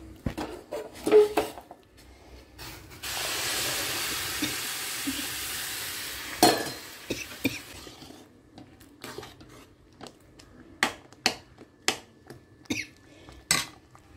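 Water poured into a hot kadai of semolina upma hisses and sizzles for about three seconds, ending in a sharp knock. A steel spoon then stirs the upma, tapping and scraping against the kadai about twice a second.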